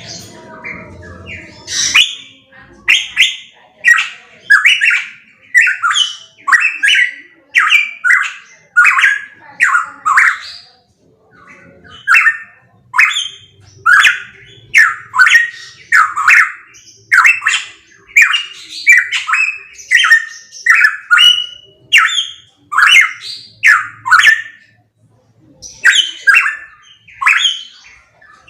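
Pitohui calling loudly, repeating short downward-sweeping notes about one and a half times a second, breaking off briefly twice.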